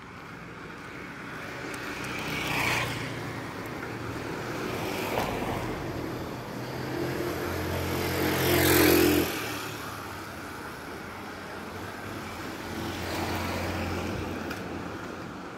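Road traffic: vehicles pass one after another, each swelling and fading, the loudest about nine seconds in with its engine hum plainly heard.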